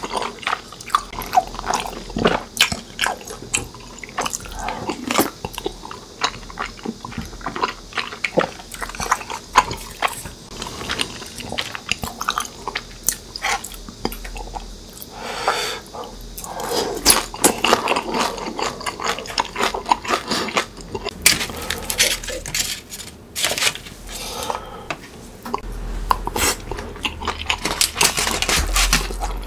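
Close-miked eating sounds: wet chewing and slurping of tteokbokki, chewy rice cakes in a thick spicy sauce, with clicks of chopsticks and a spoon against the dishes.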